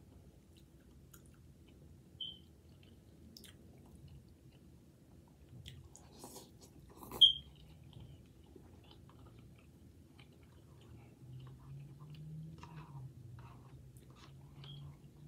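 A person chewing instant noodles at close range, with faint mouth clicks. A few short, sharp high clinks cut through, the loudest about seven seconds in.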